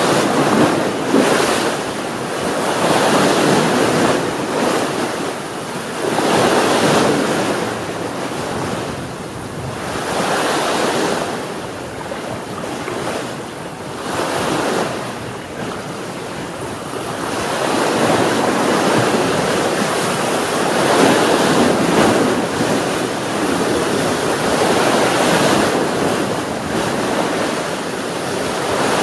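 Sea waves breaking and washing up a shore, a loud rushing surge that swells and fades every three to four seconds.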